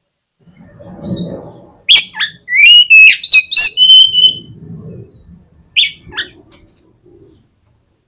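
Oriental magpie-robin (kacer) singing: a loud burst of sharp whistles, sliding notes and chattering clicks about two seconds in, then a few short notes near six seconds.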